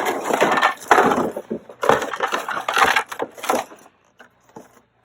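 Plastic car body parts, such as an inner fender liner, being handled and shifted about: a run of rattling, scraping and knocking noises that stops about three and a half seconds in.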